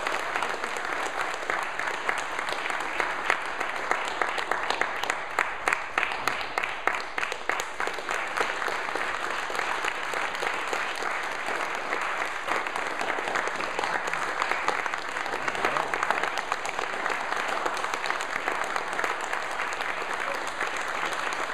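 An audience clapping steadily for about twenty seconds in a room: many hands making a dense patter of claps.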